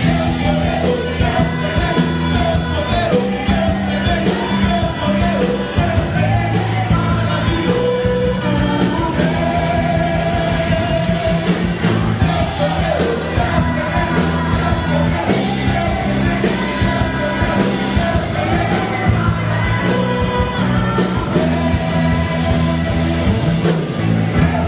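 Band music with lead singing: a Christian worship song played live with a steady rock beat, bass and guitar under the vocals.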